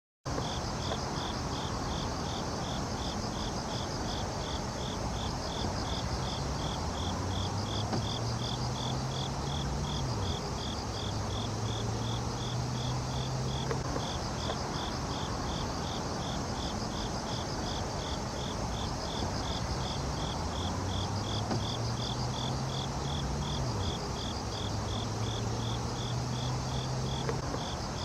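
An insect chirping steadily at about three chirps a second, with a cricket-like, high, even pulse. Beneath it, a faint low hum rises in pitch twice.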